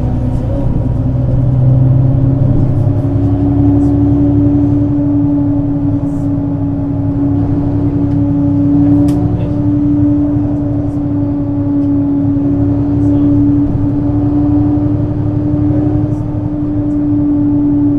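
Mercedes-Benz Citaro C2 city bus's diesel engine and drivetrain running under way. A steady whine rises slightly in the first few seconds and then holds level over a low engine hum.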